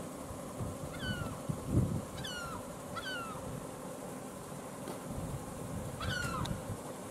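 Gulls calling: several short, falling mewing cries, some in quick pairs, over a low rumbling background. A low thud about two seconds in is the loudest sound.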